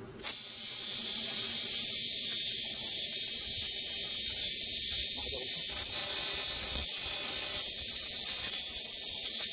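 TIG welding arc hissing steadily as a fitting is welded onto an aluminium coolant housing. The arc strikes with a sudden onset about a quarter second in and builds up over the first second, then holds.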